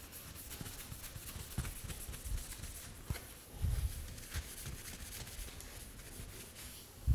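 Cloth wiping a sanded carbon-fibre panel with degreaser before lacquering: faint irregular rubbing strokes with a few soft handling knocks, the strongest a little past halfway.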